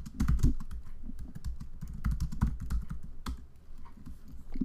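Typing on a computer keyboard: fast, clicky keystrokes for about three seconds, then a few sparser, separate keystrokes.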